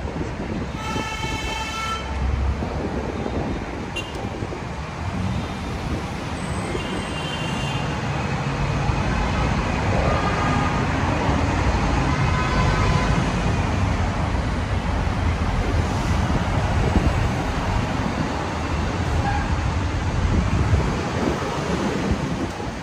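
Street traffic heard from the open top deck of a moving tour bus: a steady rumble with road noise. A short high-pitched tone comes about a second in, and a fainter one around seven seconds.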